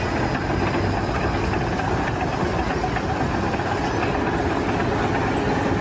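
An engine running steadily at a constant level.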